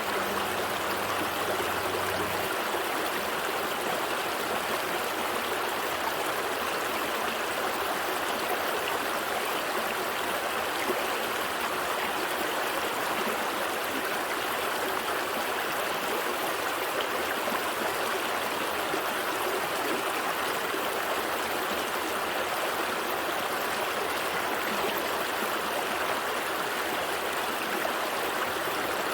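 Gentle stream flowing steadily, a constant, even burble of running water.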